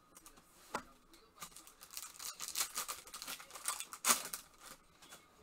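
Foil wrapper of a 2023 Panini Phoenix football card pack crinkling and tearing under gloved hands, a dense run of crackles with its sharpest snap about four seconds in. A single sharp click comes under a second in.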